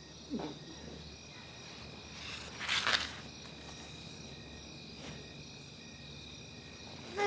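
Crickets chirping steadily, with a man's short falling grunt about half a second in, a brief louder breathy noise near three seconds, and a falling groan starting at the very end.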